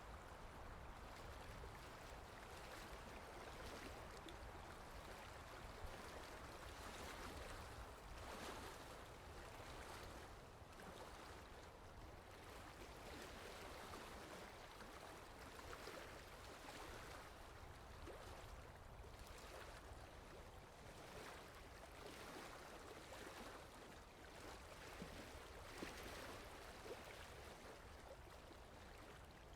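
Faint lake water lapping and sloshing, with small splashes now and then over a low steady rumble.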